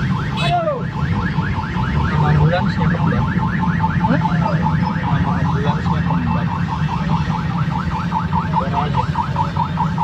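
Ambulance siren in a fast yelp, about six rising sweeps a second, over the low rumble of engines in traffic, heard from inside a car. The siren comes from an ambulance carrying a body to burial.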